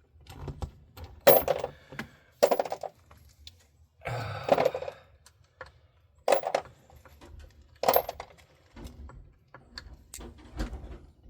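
Sharp metallic clinks and clatters of hand tools or small metal parts being handled, about five in a few seconds, one a longer rattle about four and a half seconds in.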